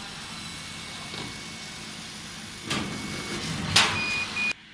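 AccTek AKJ1390 CO2 laser cutter running while it cuts acrylic sheet: a steady hiss of air assist and fume extraction with a faint motor whine. Two louder rushing bursts come about three and four seconds in, then two short high beeps, and the sound drops suddenly quieter near the end.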